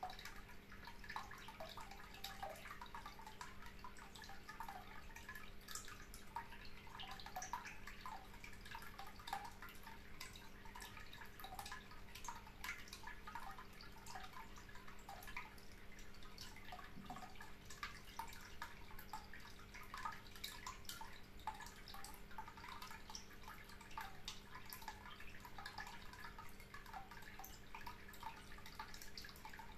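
Faint water trickling and dripping in many small, irregular drops, over a steady low hum.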